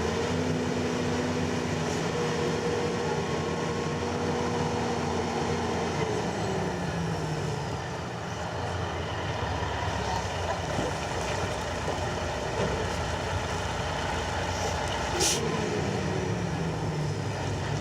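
A heavy vehicle's engine running steadily, its pitch dropping about six seconds in and climbing again near the end. A single sharp click about fifteen seconds in.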